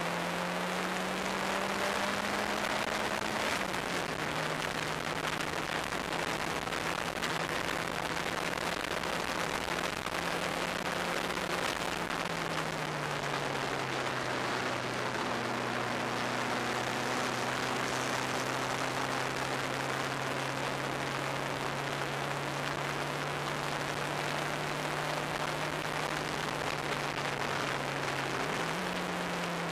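Onboard sound of an open-cockpit turbocharged track car at speed: heavy wind rush over the cockpit with a steady engine note underneath. The engine note steps down in pitch twice and briefly rises and falls again near the end.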